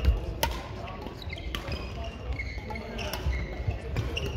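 Badminton rally in a sports hall: rackets smacking a shuttlecock in sharp cracks, and court shoes squeaking briefly on the wooden floor, with the hall's echo.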